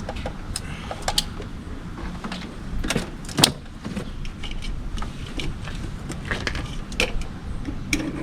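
Irregular clicks, clacks and knocks of battery clamps and cables being handled, the sharpest about three and a half seconds in, over a steady low rumble.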